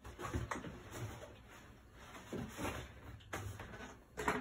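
Rustling and light knocks of a backpack and small items being handled while packing, in a series of short bursts, the loudest near the end.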